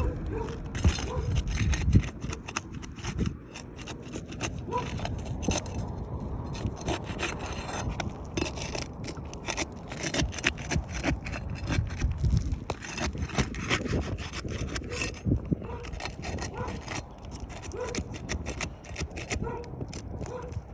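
Roof shingles being pried and pulled out, tearing as they come away, in a run of short, irregular scrapes and rubs.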